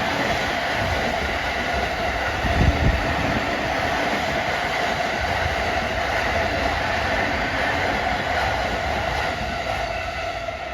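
Hauled train cars of a new E235 series EMU rolling past on the rails, a steady rumble and rush with a few heavy wheel clacks over rail joints. The sound begins to fade near the end as the train's tail draws away.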